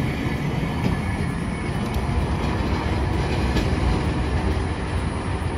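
Hiroden 1900-series tram (car 1908) running away along street-running track: a steady rolling rumble of steel wheels on rail with a few sharp clicks as the wheels pass over rail joints, growing a little fainter near the end.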